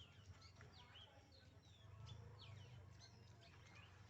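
Faint chorus of small birds chirping: many short, quick downward-sliding calls overlapping throughout, over a steady low rumble.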